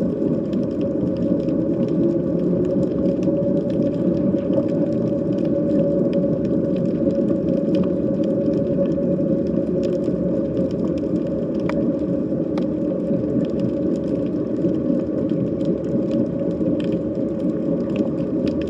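Underwater sea ambience: a steady low drone with a held tone on top of it, and faint clicks scattered through it.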